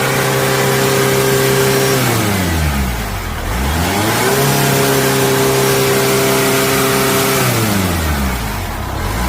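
Chevrolet Orlando's 2.0-litre turbodiesel engine being revved. It is held at high revs, drops back toward idle about two seconds in, climbs again and holds for about three seconds, then falls back and starts rising again near the end.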